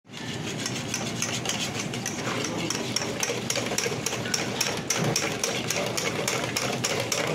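Wire balloon whisk beating thick flour batter in a stainless steel bowl: the wires clack against the metal bowl in a quick, even rhythm, with the wet slap of the batter under it.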